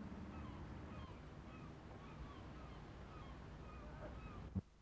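Gulls calling, a run of short calls, several a second, over a low steady rumble. A sharp knock comes near the end, after which the rumble drops away.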